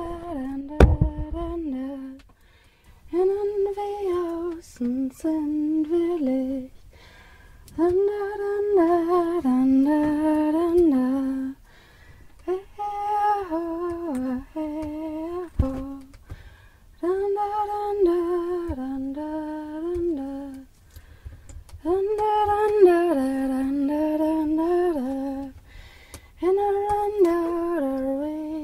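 A single voice humming a short wordless melody, the same phrase coming round about every four to five seconds with brief pauses between: each phrase starts on a held higher note and steps down to lower ones. A low thump sounds about a second in.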